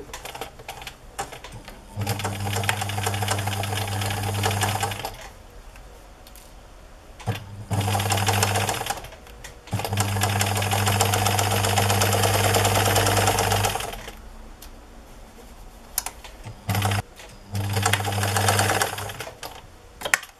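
Electric domestic sewing machine stitching a 1 cm seam, running in four or five bursts of up to about four seconds, starting and stopping between them, with a steady motor hum under the rapid needle stitches. Light clicks of fabric handling fill the pauses.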